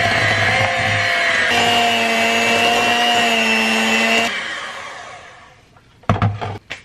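Electric hand mixer running steadily, its beaters creaming butter and sugar in a glass bowl; its note changes about a second and a half in. It switches off a little after four seconds and winds down, then a few knocks as the mixer is set down.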